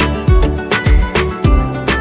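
Background music with a steady beat of deep, falling-pitch kick drums under sustained melodic tones.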